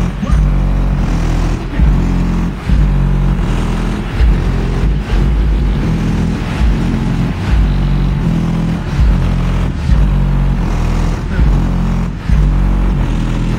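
Bass-heavy rap music played very loud through an Alpine Type R 12-inch subwoofer in a transmission-line (T-line) box, the deep bass notes stepping in pitch with the beat and far louder than the rest of the mix.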